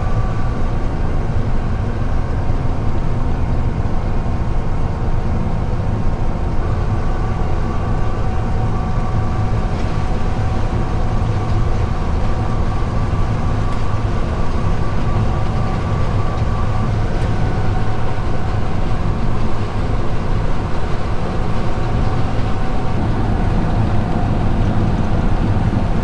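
Heavy farm machinery running steadily: a deep, continuous diesel drone with faint whines from its drives.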